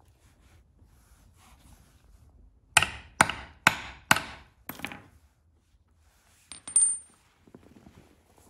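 A hammer strikes a steel hand grommet-setting punch five times, about half a second apart, crimping a metal grommet into a canvas tarp; each blow is a sharp metallic hit with a short ring. A few seconds later there is a light metallic clink with a brief high ring.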